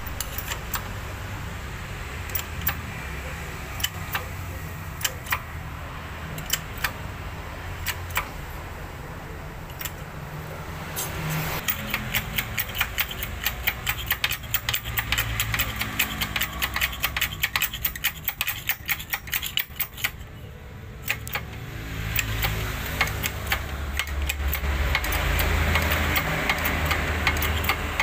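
Hydraulic bottle-jack press being worked to seat bearings on an AMR 500 supercharger's shaft: rapid metallic clicking and ticking, thickest from about a third of the way in to past the middle, over a steady low hum, with a louder, noisier stretch near the end.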